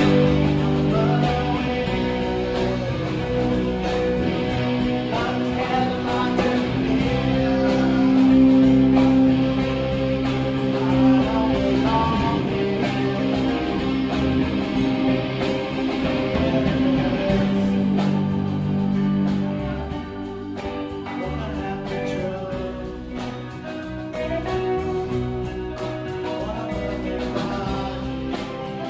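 Live song: a singer's voice over guitar playing, a little quieter from about two-thirds of the way through.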